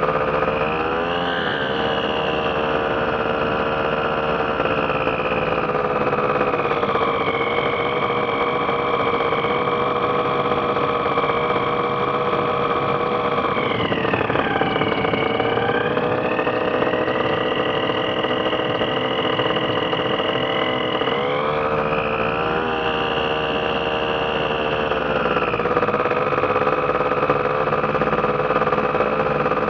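Ultralight aircraft engine and propeller running steadily at power. The engine note dips in pitch about halfway through and comes back up, then rises again a little later as the throttle is moved.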